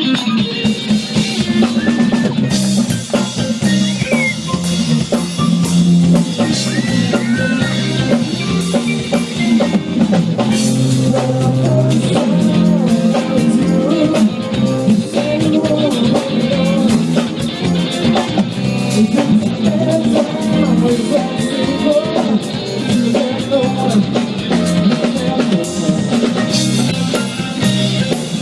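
A live band playing: electric guitar over a drum kit with rimshots.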